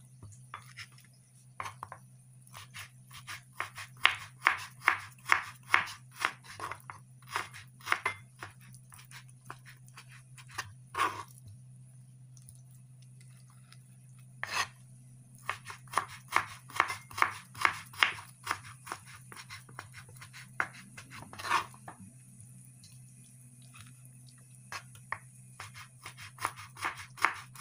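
Kitchen knife slicing raw chicken breast on a wooden cutting board: the blade taps the board in runs of about two to three cuts a second, with short pauses between runs.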